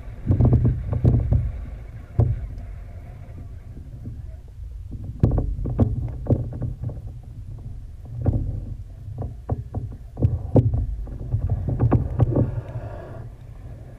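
Underwater sound picked up by a GoPro Hero3 in its waterproof housing as it moves through seawater: muffled low water surges coming in irregular bursts, with sharp clicks and knocks scattered through them.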